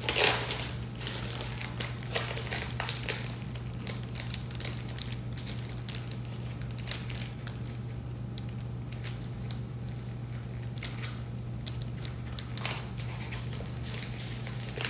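Plastic poly bag crinkling and rustling as it is handled while a sticker is put on. There is a louder rustle right at the start, then scattered small crackles over a steady low hum.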